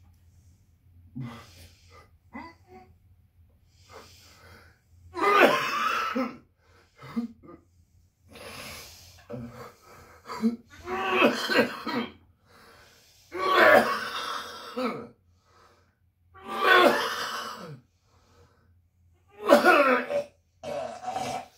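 A man coughing hard and heaving over a plastic bucket, in about six loud, harsh fits of a second or so each, starting about five seconds in, with strained breathing between them.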